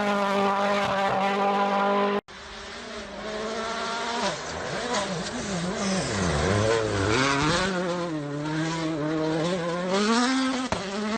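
Rally car engines at full attack. One engine is held at steady high revs for about two seconds, then, after a cut, another runs with its pitch falling and rising again and again through lifts, gear changes and hard acceleration.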